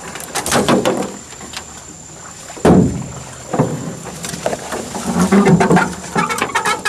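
Canoe being forced through flooded brush: branches and twigs scrape, crackle and knock against the hull and paddle. The loudest is a single sharp knock about halfway through.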